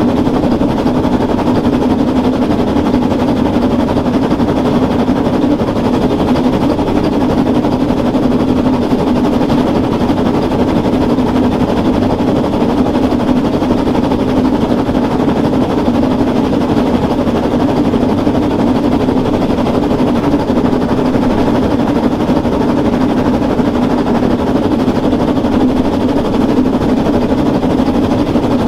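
Narrow-gauge steam train under way, heard from on board: a loud, steady, rapid clatter and rumble of the working locomotive and its wheels on the rails, with no let-up.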